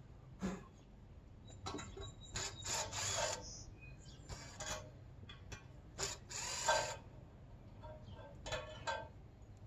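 Short, irregular mechanical clicks, clatters and rattles from work on an aluminum ladder fixed along the top of a log as a guide rail for the chainsaw mill's top cut. The bursts come at uneven intervals, the loudest about three seconds in and again about six and a half seconds in.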